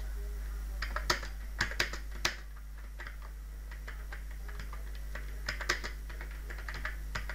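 Computer keyboard keys clicking as a short phrase is typed. The clicks come in two quick runs, one about a second in and another past the middle, over a steady low hum.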